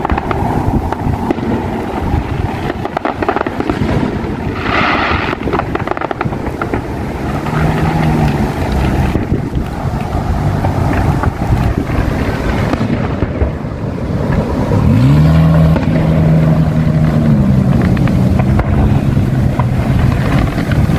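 Highway traffic passing close by, engine hum rising and falling in pitch as vehicles go past, with wind buffeting the microphone. A louder vehicle passes about fifteen seconds in.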